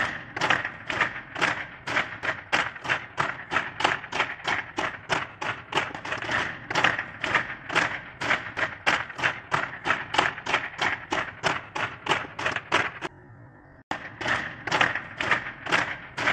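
A group of men cracking long fitness whips over and over in rapid succession, about three or four sharp cracks a second, standing in for a string of firecrackers. The cracking stops for under a second about thirteen seconds in, then carries on.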